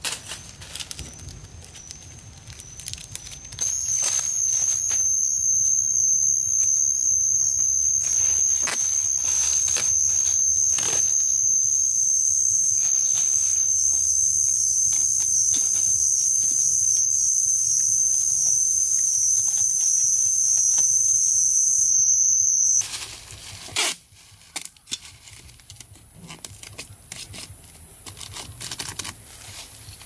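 Plastic stretch wrap being pulled off its roll and wound tight round a frame: a long continuous ripping crackle with a steady high squeal, starting a few seconds in and stopping abruptly about 23 seconds in, then softer crinkling and clicks as the film is handled.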